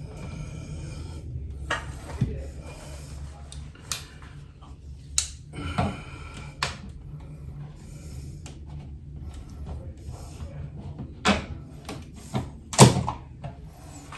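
Scattered clicks, taps and knocks of hand work on a wall light switch and its cover plate, with a sharper knock about 13 seconds in, over a steady low hum.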